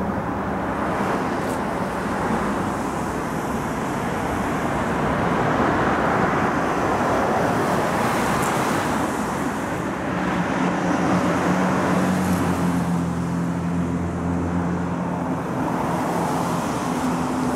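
Road traffic passing, then an engine running with a steady low hum from about ten seconds in.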